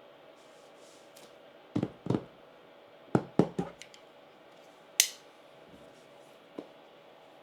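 Sharp knocks and taps from handling a keyboard's box and packaging during unboxing: a quick cluster about two to four seconds in, then a single bright click about five seconds in, over a faint steady hum.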